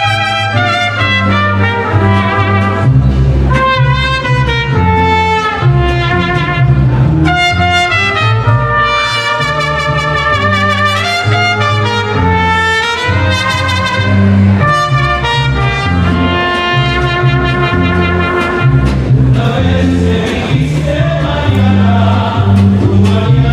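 Mariachi band playing live: trumpets carry the melody over a plucked guitarrón bass line and strummed guitar. Near the end the trumpets stop and the strings carry on.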